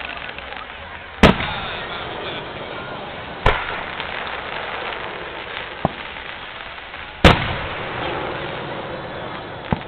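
Fireworks bursting: three loud, sharp bangs, the last about seven seconds in the loudest, each trailing off in a short echo, with two smaller cracks between and near the end, over a steady background noise.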